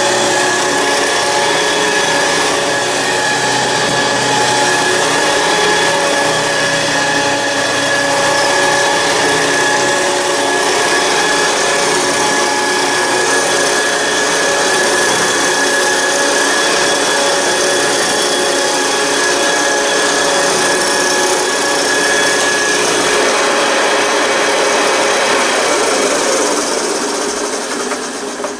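A 1967 Hoover Senior 652A upright vacuum cleaner running steadily, its motor giving a high whine over broad noise, then switched off and running down near the end. Its whole front is vibrating heavily, which the owner thinks is the brush bar and a worn belt, and its motor bearings are dry and need greasing.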